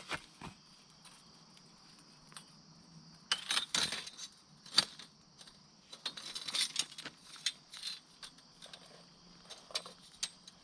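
A steel sawmill bandsaw blade being handled and twisted into a coil, rattling and clinking in irregular bursts of light metallic jingles and clicks.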